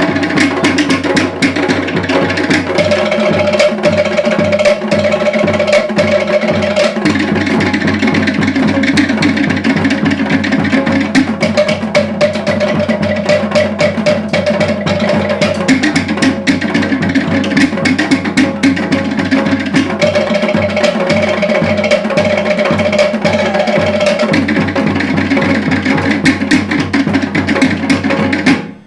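Tahitian drumming music: a fast, dense rhythm on wooden slit drums (to'ere) and drums, with a held melodic line over it. It cuts off abruptly at the very end.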